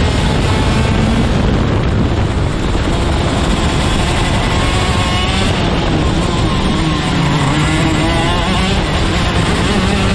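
Racing kart engine at full race pace, heard close up from the driver's seat. Its note drops in pitch about halfway through as the kart slows for a bend, then climbs again as it accelerates out.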